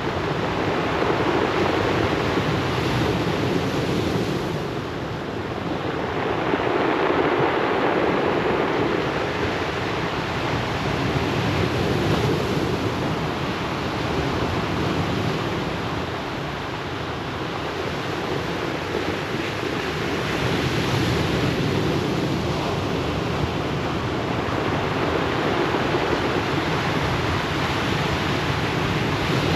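Ocean waves breaking and washing ashore as a continuous surf noise, swelling and easing every several seconds.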